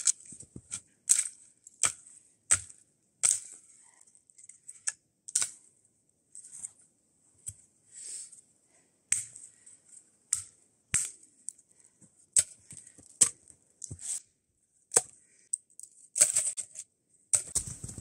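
Dry dead sticks snapping and cracking as they are broken by hand and against a boot, a sharp crack about once a second at irregular intervals, with softer crunches in between.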